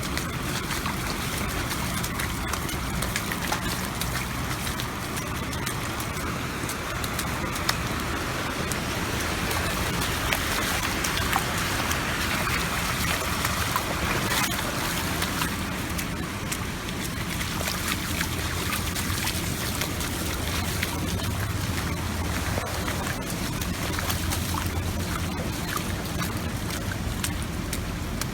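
Rubber wellington boots wading through shallow floodwater in a street: steady splashing and sloshing, with a low rumble underneath.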